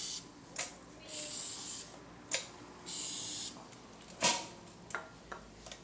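Aerosol can of heavy-duty garage door lubricant sprayed onto new drive chains in two short hissing bursts, with a few sharp clicks between them.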